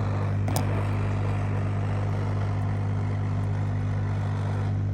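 Steady low mechanical hum of a running motor or engine, even throughout, with a faint click about half a second in.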